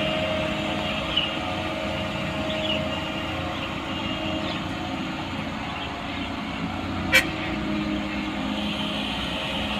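Heavy construction vehicle engine running steadily, with a single sharp knock about seven seconds in.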